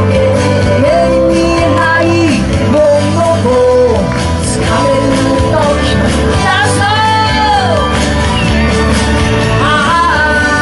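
Pop song at full volume: a steady bass beat with melodic instrumental lines and a voice singing over it, with a long arching phrase about two-thirds of the way through.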